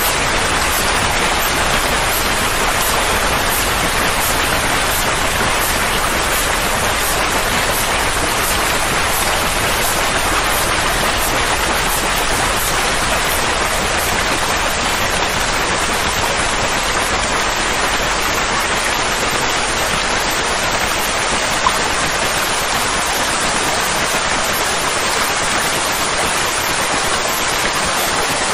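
Steady, even rain-like noise with no rhythm or pitch, a continuous soothing sound track for calming a colicky baby. One small click sounds about three-quarters of the way through.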